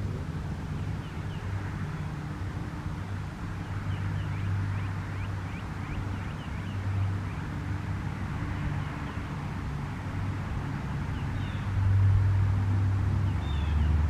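Road traffic: vehicle engines and tyres running steadily, swelling louder about twelve seconds in as a vehicle passes.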